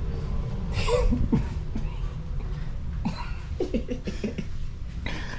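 A person coughs loudly about a second in, followed a couple of seconds later by a string of short voice sounds, over a steady low rumble.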